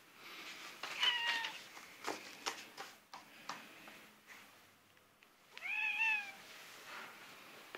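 A domestic cat meowing twice: a short meow about a second in, then a longer meow near six seconds that rises and then falls in pitch.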